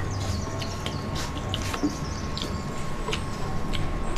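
A person chewing fried milkfish with scattered wet mouth clicks and smacks, over a steady electrical hum.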